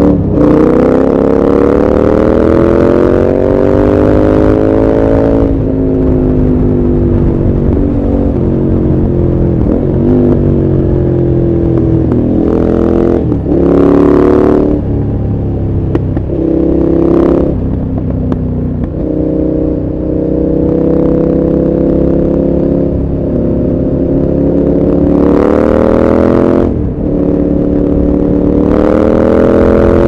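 KTM 1190 Adventure R's V-twin engine, heard from the rider's seat while riding, its revs climbing steadily and then dropping several times as the throttle is worked, with a few short louder bursts of revs.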